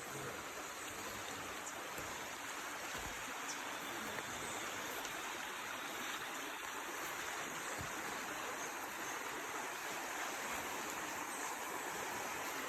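Swollen floodwater river rushing steadily.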